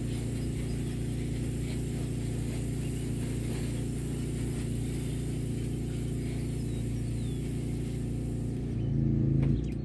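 An engine running steadily with a low, even hum, getting louder with a change in its pitch about nine seconds in.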